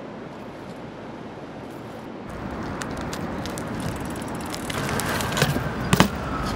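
Outdoor street noise that grows louder partway through, with a few sharp knocks near the end and a falling siren-like tone starting faintly.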